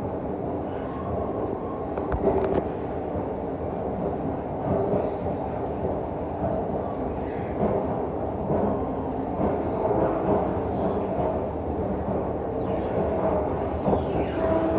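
Escalator running while being ridden upward: a steady mechanical hum and rumble of the moving steps, with a few light clicks about two seconds in.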